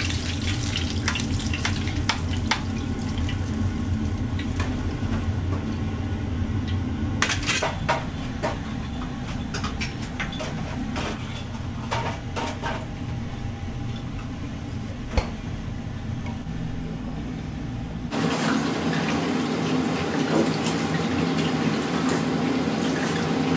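Restaurant kitchen at work: scattered clinks and knocks of dishes, pans and utensils over a steady low hum. The sound turns busier and denser about three-quarters of the way through.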